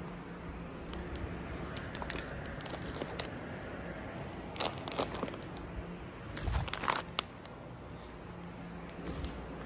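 Household items being handled: plastic packaging crinkling, then clothes and small objects going into a fabric laundry basket, with a cluster of sharp clicks and knocks a little after halfway and one sharp knock about seven seconds in.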